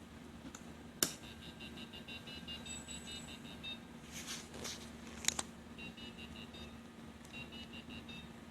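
Micro:bit robot car's buzzer sounding quick runs of short high beeps, a sound effect driven by its ultrasonic distance sensor. A sharp click about a second in and a few knocks in the middle.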